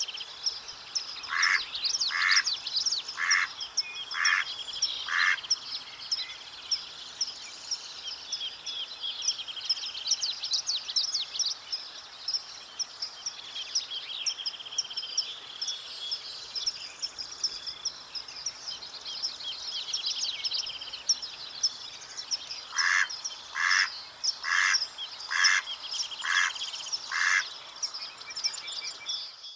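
Mallard quacking in two series of five or six evenly spaced quacks, one near the start and one near the end, over a busy background chorus of songbirds trilling and chirping.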